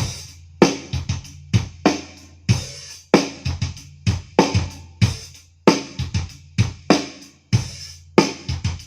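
Drum-heavy music played loud through an AD Nux 15A active powered speaker: sharp kick and snare hits about twice a second over a steady deep bass line. The tester says the plastic molded cabinet vibrates under the bass at this volume.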